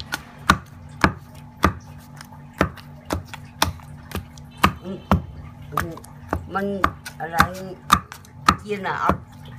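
Wooden pestle pounding fish and lemongrass paste in a heavy stone mortar, dull thuds about twice a second, the fish being worked into a paste for meatballs. A voice is heard faintly in the background in the second half.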